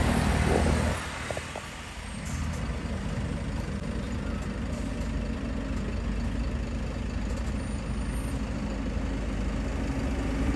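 Diesel engine of a heavy goods truck running, a steady low rumble; the sound drops a little about a second in and then holds steady as the truck stands idling.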